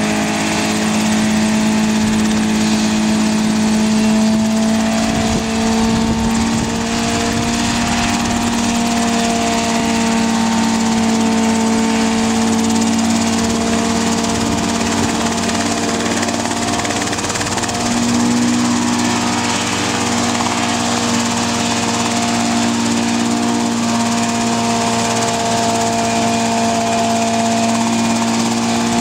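Helicopter engine running at a steady speed, a constant droning note whose pitch shifts slightly now and then.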